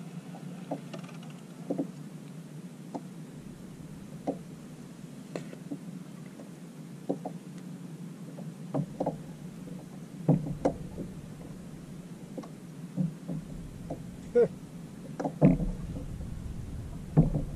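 Irregular knocks and clunks of rod, reel and gear against the plastic hull of a Hobie Outback fishing kayak while the line is wound in and handled. The knocks come more often and louder in the second half.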